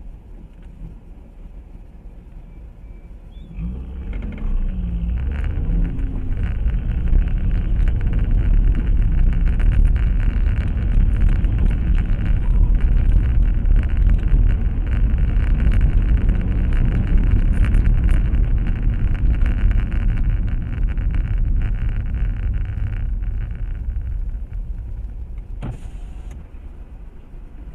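Car engine and road noise, heard from inside a moving car. It starts quiet, swells from about four seconds in, holds steady through the middle and dies down near the end, with a brief click shortly before the end.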